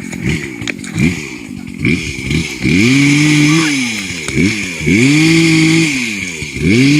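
Chainsaw engine revved up to high speed and held for about a second, then let back down, several times over.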